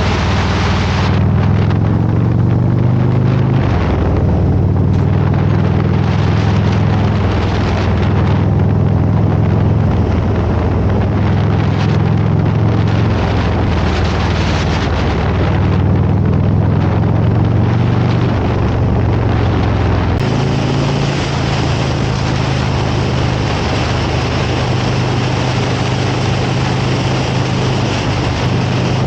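Harley-Davidson Road Glide's V-twin engine running under way, with wind rushing over the microphone. The engine note shifts in pitch several times, and the sound changes abruptly about two-thirds of the way through.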